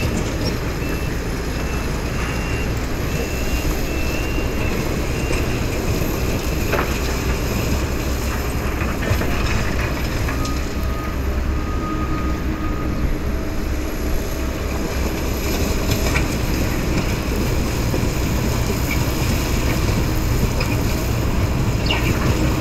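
Crawler bulldozer's diesel engine running steadily under load as its blade pushes up broken asphalt track surface, with a few brief knocks from the breaking pavement.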